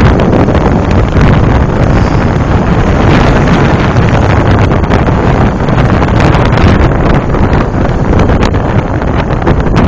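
Loud wind buffeting the microphone of a camera riding on a moving bike, mixed with vehicle noise from the ride and the traffic.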